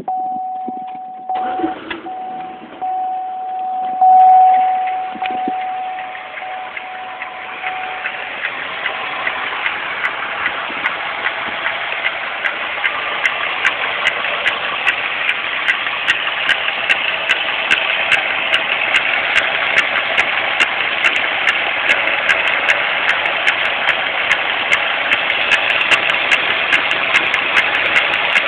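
2001 Pontiac Grand Am GT's 3.4-litre V6 being started and then idling. A steady high tone with short breaks sounds for the first several seconds, and the engine catches about four seconds in. Once it is running, a constant, evenly repeating clicking rides over the idle; its cause is unknown to the owner.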